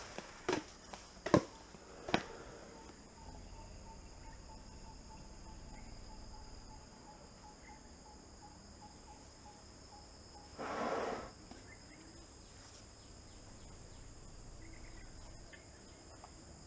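Forest insects trilling in a steady high chorus. A few sharp cracks stand out in the first two seconds, and a short, rough rushing noise comes about eleven seconds in.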